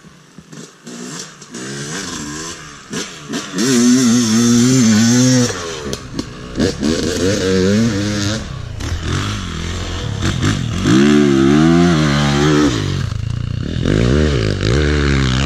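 Two-stroke dirt bike engine revving hard, its pitch rising and falling again and again as the rider works the throttle and shifts. It is quieter for the first second or two, then comes in loud spells.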